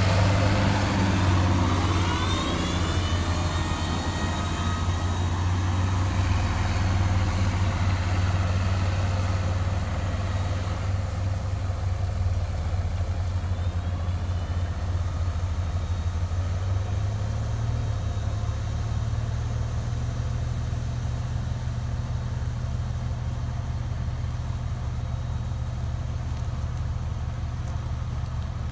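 International 5488 tractor's six-cylinder 466 cubic inch turbo diesel running steadily under load while pulling field equipment. It is loudest as it passes close in the first seconds, then drones on and slowly fades as it moves away across the field.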